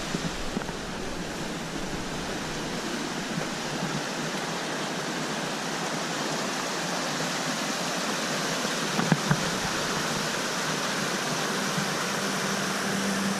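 A mountain stream rushing and splashing over boulders in small cascades: a steady rush of water. There are two brief knocks about nine seconds in, and music fades in near the end.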